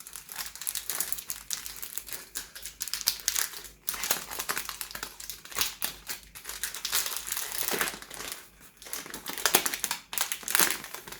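Packaging crinkling and rustling in the hands as a perfume box is unwrapped and handled, in irregular crackly spurts with short pauses.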